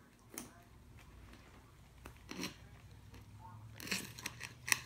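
A puppy crunching dry kibble from an enamel bowl: a few separate crunches, then a quick run of them near the end.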